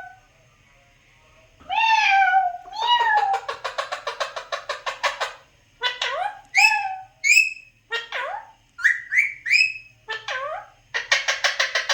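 Alexandrine parakeet calling. After a short quiet start come an arched call, a fast stuttering chatter, then a run of short shrill squawks that sweep up and down, and another fast chatter near the end.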